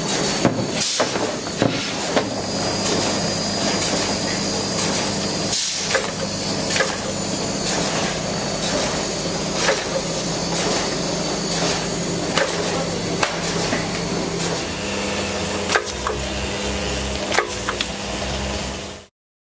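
Automatic front-and-back self-adhesive labelling machine running: a steady motor and conveyor hum with irregular sharp clacks and knocks as bottles pass through. The sound cuts off suddenly near the end.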